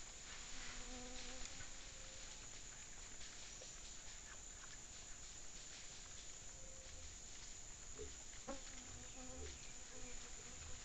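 Steady buzzing of a forest insect chorus, picked up by a trail camera's microphone. Over it come a few short low calls and scattered clicks and soft thumps.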